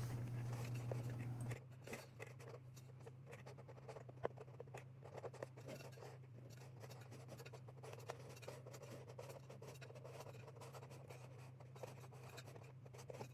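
Faint scratching and light ticks of glue being run around a speaker's voice coil by hand, over a steady low hum. A soft hiss underneath cuts off after about a second and a half.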